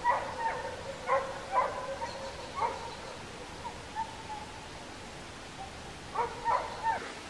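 A series of short, pitched animal calls from a distant animal: a cluster of calls over the first two and a half seconds, a few single calls around the middle, and another cluster near the end.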